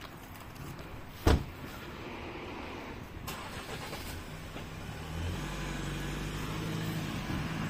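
A car engine running: a low steady hum comes in about four seconds in and grows louder a second later. A sharp knock a little over a second in is the loudest sound.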